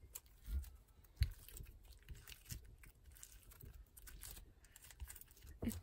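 Hands squeezing and stretching foam-bead slime: faint scattered crackles and squishes, with a couple of soft low thumps in the first second or so.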